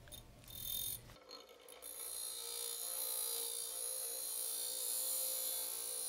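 Bench grinder running with a steady whine while a steel bicycle head tube is ground against the wheel, starting about a second in. This is the head tube being cleaned up after being cut from the donor frame.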